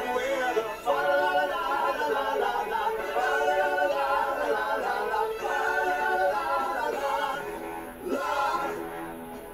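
Male a cappella vocal group singing held chords in close harmony, several voices stacked together, the singing easing off about seven seconds in.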